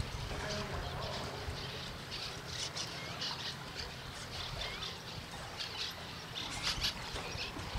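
Birds chirping: many short, high chirps, some sliding up in pitch, over a steady low rumble.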